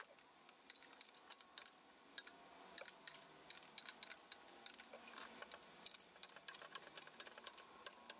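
Diagonal cutters snipping the excess resistor leads off the back of a circuit board: an irregular run of small, sharp clicks, several a second.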